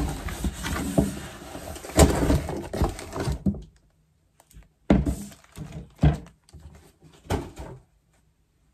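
Cardboard shipping box being opened and unpacked: flaps and packing material rustling with knocks for the first few seconds, then three thumps about a second apart as the inner box and packing are lifted out and set down on the table.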